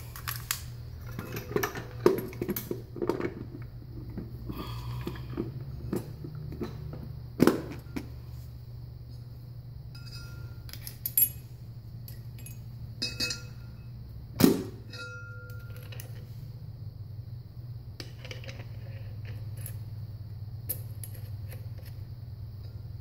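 Metal parts of a Hydra-Matic transmission clinking and knocking as they are fitted by hand: the torus is slid onto its shaft and its centre nut is started. Scattered sharp knocks, the loudest about seven and fourteen seconds in, sound over a steady low hum.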